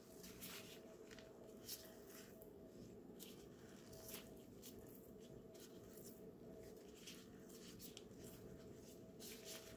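Faint, irregular crinkling and soft squishing of disposable plastic gloves as cooked chicken is torn apart into strips by hand, over a faint steady hum.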